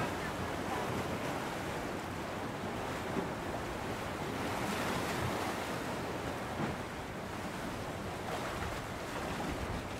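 Steady rush of sea surf washing against the shore, with some wind.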